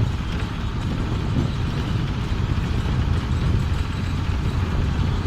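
Steady rumble of street traffic and engines, with no single event standing out.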